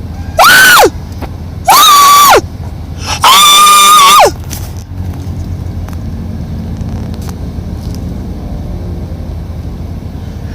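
Three loud, drawn-out calls from a pet animal, each rising and then sliding steeply down in pitch, the third held longest on one note before it drops. After the third call, only a steady low hum remains.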